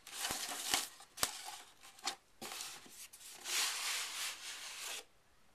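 Cardboard packaging being handled: an iPad box shifted and slid out of its corrugated shipping carton and moulded paper end-caps. There are a few light taps in the first second or so, then a longer scraping rub of cardboard on cardboard.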